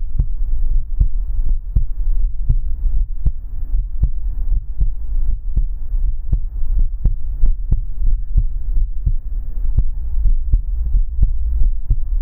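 Heartbeat, beating in a steady, even rhythm of sharp low beats over a constant low rumble and a faint hum.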